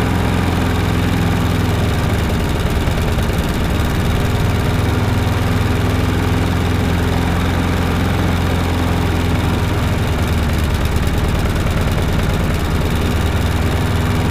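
Briggs & Stratton single-cylinder petrol engine of a rotary lawnmower running steadily after a pull start, smooth but a little slow. The owner puts the slow speed down to the governor arm springs.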